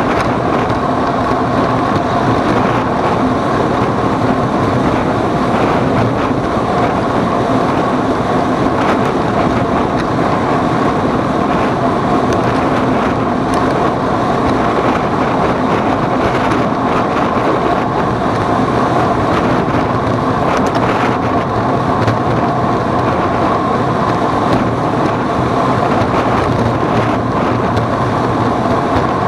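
A vehicle's engine running steadily at an unchanging pitch, under a constant rush of noise.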